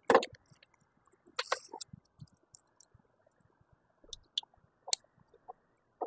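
Scattered small clicks and rustles of plastic wire connectors and wiring being handled by gloved hands while a replacement voltage regulator (AVR) is connected on a generator's alternator end. The sharpest click comes right at the start, with a few more clustered about a second and a half in and between four and five seconds.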